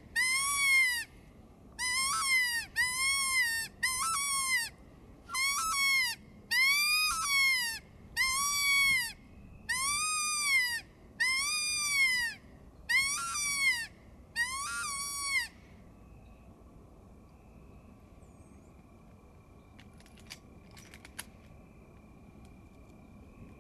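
Predator call blown to lure coyotes, in a series of about a dozen short wails that rise and fall in pitch. The calling stops about fifteen seconds in, leaving a faint steady high tone and a few faint clicks.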